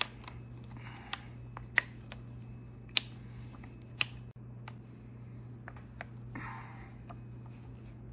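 Sharp metallic clicks, a handful in the first four seconds, from a T-handle hex key being worked in the carburetor mounting bolts of a Yamaha 6 HP four-stroke outboard to loosen the carburetor. A few soft rustles come between the clicks, over a low steady hum.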